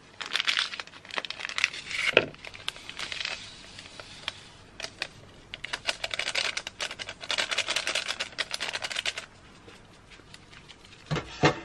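Small sachets of vanilla sugar being torn open and crinkled, the sugar shaken out of them into a plastic mixing bowl, with crisp rustling and ticking that comes and goes. A couple of sharp knocks near the end.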